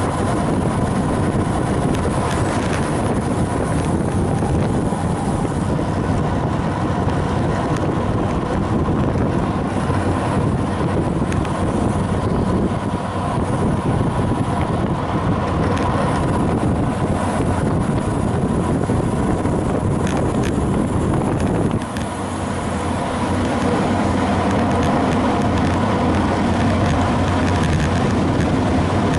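Steady wind noise rushing over a road bike's onboard camera at riding speed, easing briefly about two-thirds of the way through.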